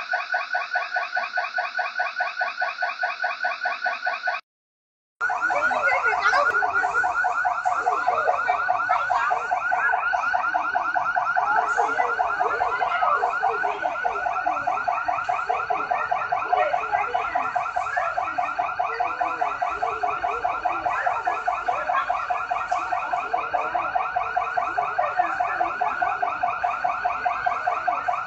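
Shop burglar alarm ringing continuously with a rapid, pulsing electronic tone. It cuts out for a moment about four seconds in, then goes on unchanged.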